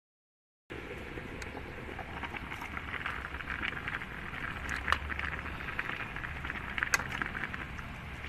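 Pot of noodles boiling on the stove: water bubbling steadily with many small pops, and two sharper clicks about two seconds apart. It starts suddenly about a second in.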